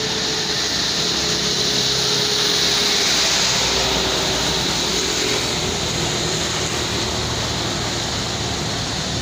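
Agramas intercity bus standing with its engine idling close by: a steady, even hum with a strong hiss over it.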